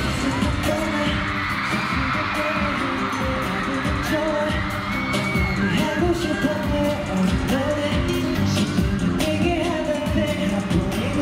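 Live K-pop performance: a male voice singing over a pop backing track with a steady beat.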